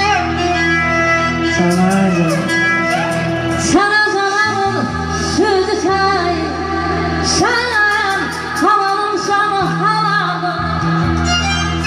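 A woman singing into a microphone over amplified backing music with a steady low drone. Her voice holds notes and slides and bends between them, clearest from about four seconds in.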